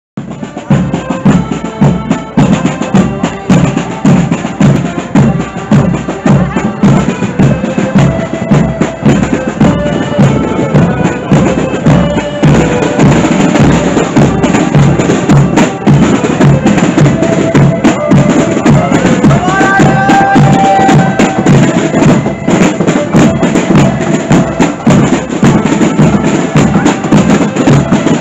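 Marching accordion band playing a tune on piano accordions over a steady marching beat of bass drum and snare drums.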